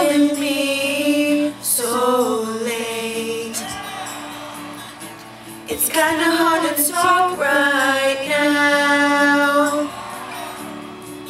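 Two women singing together into karaoke microphones over a backing track, holding long notes. The singing drops away for a couple of seconds in the middle and stops near the end, leaving the backing music.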